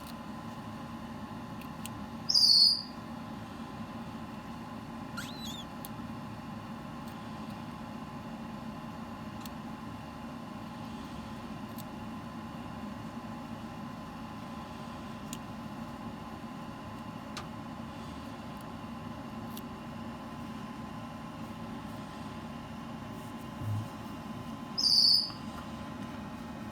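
Two short, loud, high-pitched squeaky peeps, one about two seconds in and one near the end, from a Moluccan cockatoo chick in its hatching egg. A steady electrical hum runs underneath.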